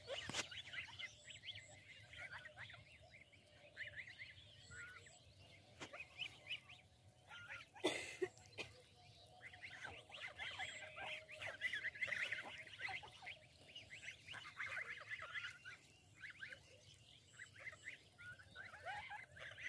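A flock of domestic geese and ducks calling softly while foraging: many short, overlapping calls and chatter, with one sharp knock about eight seconds in.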